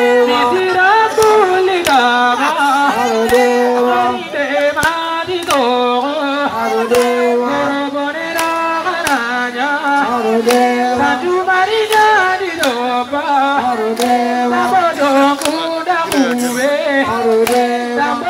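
A man singing through a microphone, a melodic line that bends and breaks between phrases, over sharp beats that come about every three quarters of a second.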